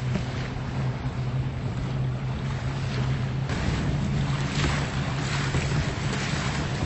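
A boat's engine running steadily with a low hum, under the hiss of wind and water; about three and a half seconds in, the wind and water hiss grows louder.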